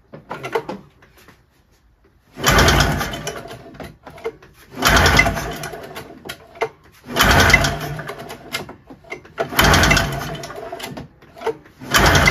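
Rotax two-cylinder two-stroke snowmobile engine cranked over by its recoil pull-start rope for a compression test, with no firing. There are five hard pulls about every two and a half seconds, each loud at the start and then fading as the engine coasts.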